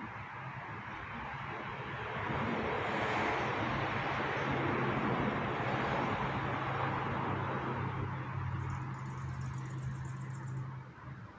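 Loud mechanical noise: a steady low hum under a broad rushing sound that swells about two seconds in and eases off near the end.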